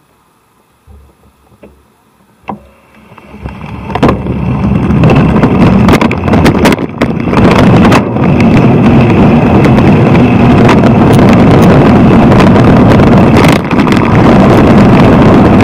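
Wind buffeting the microphone of a bicycle-mounted camera, mixed with road rumble from the ride. It starts near quiet with a few faint clicks, swells over about a second, three to four seconds in, and then stays loud and steady.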